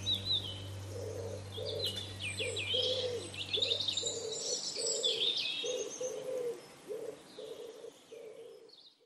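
Doves cooing in a regular run of short low notes while small birds chirp and trill above them, the whole fading out toward the end.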